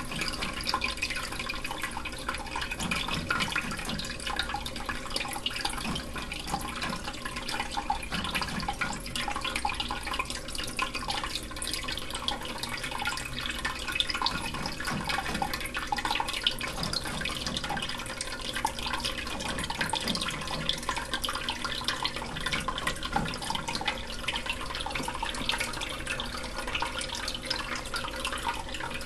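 Aquarium water trickling and splashing steadily, a continuous patter of small splashes.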